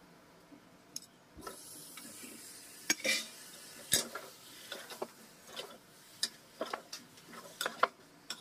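Chicken pieces sizzling in a steel pot on a gas burner while a metal spoon stirs them, scraping and clinking against the pot. The sizzling starts about a second and a half in; the spoon's clinks are the sharpest sounds.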